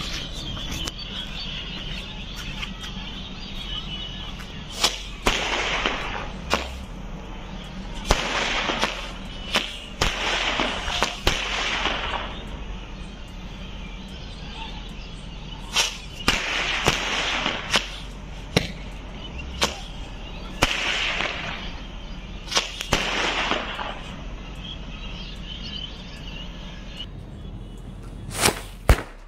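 Homemade ten-shot sky shot, made from matchstick powder and small bijli crackers, firing its shots one after another. Each shot is a hissing whoosh of about a second, with sharp cracks scattered between them. A steady hiss comes before the first shot.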